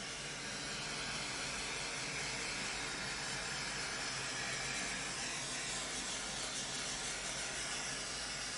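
Handheld butane torch hissing steadily as its flame is passed over wet poured acrylic paint.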